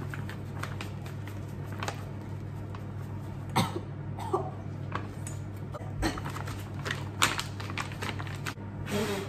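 Brownie-mix packet shaken and tapped over a glass mixing bowl to empty out the last of the powder: crinkling rustles with sharp slaps about once a second, over a steady low hum.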